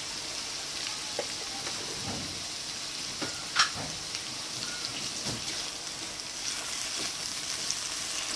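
Chopped chilli, garlic and shallots sizzling steadily in hot oil in a non-stick frying pan, with a few short clicks, the sharpest about three and a half seconds in. A silicone spatula stirs the paste near the end.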